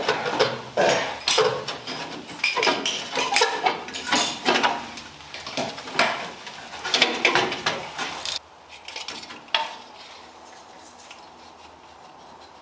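Metal tools and small parts clinking and clattering in a busy run of sharp clanks as an old sealed-beam headlight is taken out. The clatter stops about eight seconds in.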